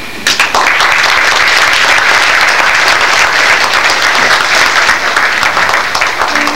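Audience applauding in a school auditorium as a scene ends and the stage goes dark. The clapping breaks out suddenly just after the start, stays dense and steady, and thins near the end.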